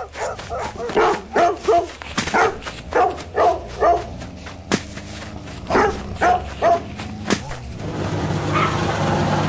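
Dogs barking in short repeated barks, about one or two a second. Near the end a steady engine rumble grows louder.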